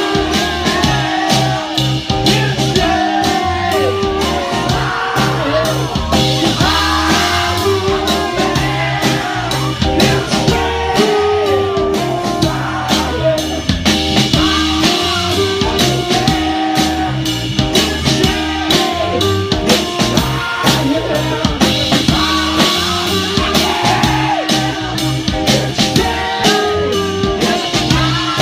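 Live rock band playing loudly: drum kit, electric guitar and keyboards, with a singer on a microphone.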